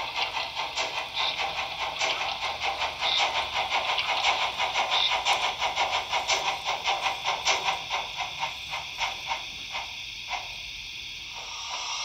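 Sound decoder of a Trix DB Br 44 HO-scale model steam locomotive playing its three-cylinder exhaust chuff, a steady run of about four beats a second that fades away near the end.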